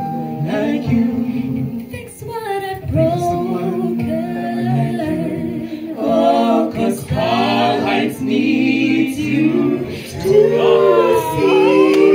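A small vocal group singing a cappella into microphones, several voices together in harmony on long held notes.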